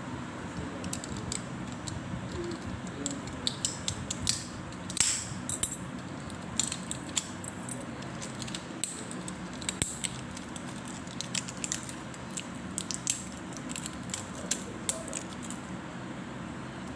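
Jelly slime being squished and worked by hand, giving many short, irregular sticky clicks and pops, a cluster of the loudest about five seconds in, over a steady low background noise.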